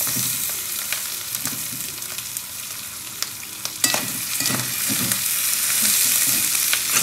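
Dried catfish, onions and freshly added tomato sizzling in hot oil in a cast-iron wok while being stirred, with scrapes and clicks of a metal spoon against the pan. There is a sharp knock about four seconds in.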